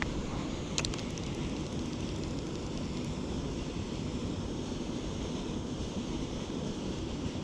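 Wind buffeting the microphone: a steady, rumbling rush of noise, with one sharp click about a second in.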